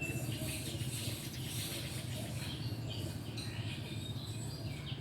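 Small birds chirping and calling in short scattered notes, over a steady low hum.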